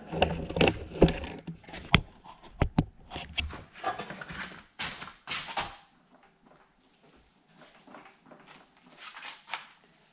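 Knocks, clicks and scrapes of metal as the rear half of a compact tractor is worked loose and pushed away from the front half to split the tractor. The noises are close together for about six seconds, then fewer and fainter.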